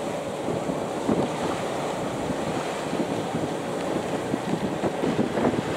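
Wind buffeting the microphone over the rush of water along the hull of a sailing yacht under way, gusting a little harder near the end.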